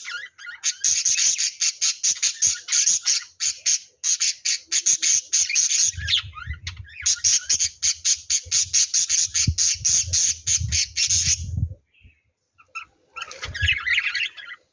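Lovebirds chattering: long runs of rapid, shrill, high chirps, several a second, that break off about twelve seconds in, followed by one short burst of chatter near the end.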